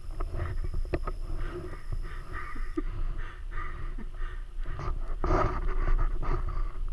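Scattered scrapes, rustles and short knocks as a fallen Suzuki DR-Z400 dirt bike is handled in wet grass, over a steady low wind rumble on the helmet-mounted microphone.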